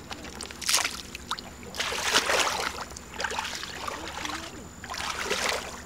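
Water sloshing and splashing in four bursts as a plastic basket is swished through shallow muddy water to rinse its catch; the longest burst comes about two seconds in.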